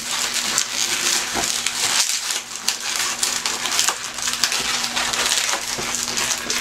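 Latex balloons being twisted and pressed together in the hands, a green 260 modelling balloon and a small water balloon: a continuous rubbing with many small clicks and squeaks.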